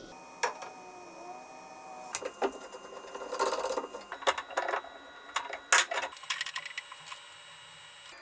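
Metal parts of an old cast-iron drill press being handled during disassembly: scattered clicks, clinks and short knocks, the sharpest about six seconds in.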